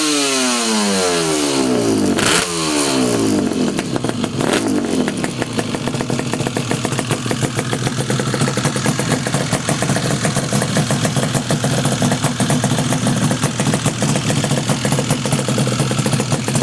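Yamaha RD350LC two-stroke parallel-twin motorcycle engine through Micron expansion-chamber exhausts, blipped twice in the first few seconds with the revs falling away each time, then a smaller blip, then idling steadily.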